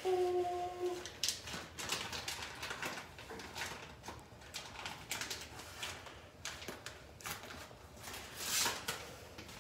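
A short hummed "mmm" in the first second, then a utensil clicking and scraping against a bowl as the cheese filling is mixed.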